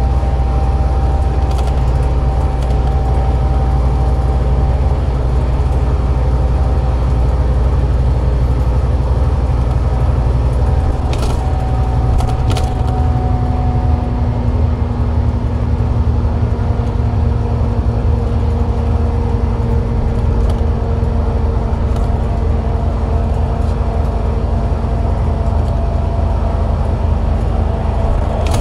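Scania K360IB bus with its DC13 13-litre straight-six diesel running under way: a steady low engine drone, with thin whining tones above it that drift slowly in pitch. A couple of sharp knocks come about 11 and 12 seconds in.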